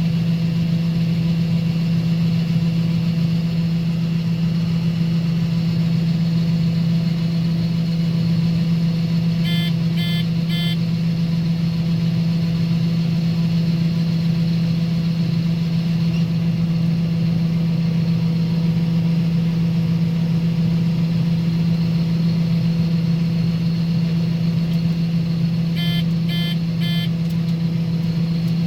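Combine harvester running steadily while shelling corn, a constant engine drone. Two sets of three short electronic beeps, about ten seconds in and again near the end.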